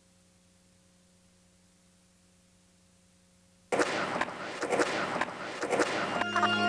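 A faint electrical hum for the first few seconds, then a skateboard on concrete: a loud rolling rush of the wheels with several sharp clacks of the board popping and landing. Music comes in near the end.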